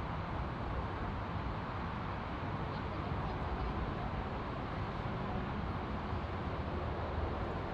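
Steady noise of jet airliner engines, an even rumble without changes in level or pitch.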